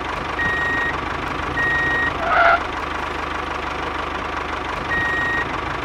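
Dubbed tractor engine sound idling with a steady rumble, while a reversing alarm beeps three times, each beep about half a second long, signalling the tractor backing up. A brief squeak sounds about halfway through.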